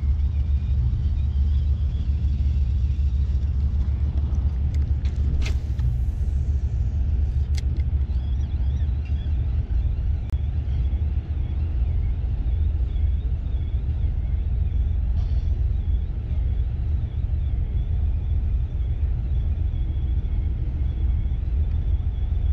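Boat engine idling with a steady low rumble, with a couple of sharp clicks about five and seven seconds in.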